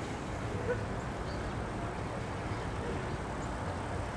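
Steady low rumble of city traffic, with a few faint short sounds over it.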